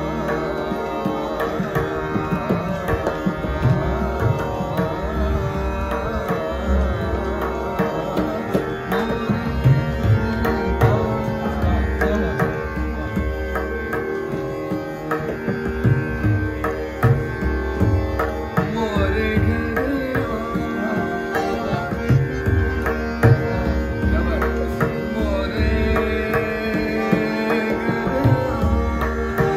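Hindustani classical music: harmonium playing a melody over steady held notes, with tabla strokes and deep bass-drum booms from the bayan. A man's voice glides between notes at times.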